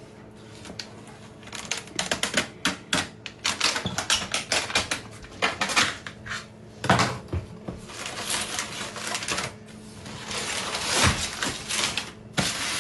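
Rapid, irregular clicking and tapping, several clicks a second, over a faint steady hum.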